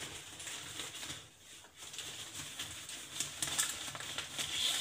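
Shiny fabric drawstring bag rustling and crinkling as a large plastic twisty puzzle is slid out of it, with scattered light clicks in the second half.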